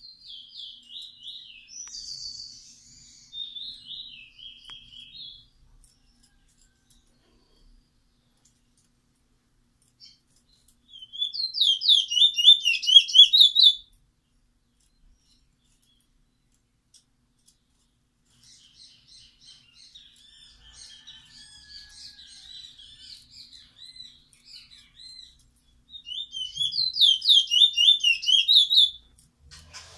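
Caged black songbird, kept as a song-teacher bird, singing in short bursts of rapid high notes: a twittering phrase at the start, two loud fast trilled phrases about 11 and 27 seconds in, and softer twittering in between.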